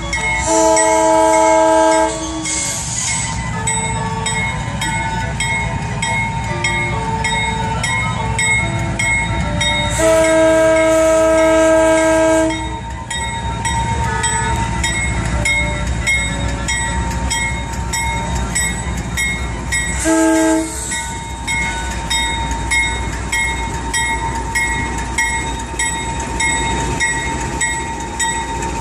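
Norfolk Southern freight train's diesel locomotives running past with the lead unit's multi-note air horn sounding: a blast of about two seconds at the start, a longer one about ten seconds in, and a short one about twenty seconds in. Under it a crossing bell rings steadily, about two strikes a second, over the low rumble of the engines.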